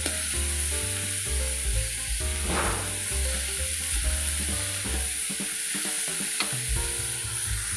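Shredded chicken with onion and garlic sizzling in hot oil in a pan as a spatula stirs it, a steady frying hiss. Background music plays underneath.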